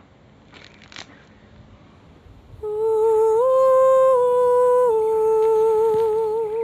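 A person humming a short tune: a held note that steps up and back down again, finishing with a wavering vibrato. A faint rustle and click about a second in.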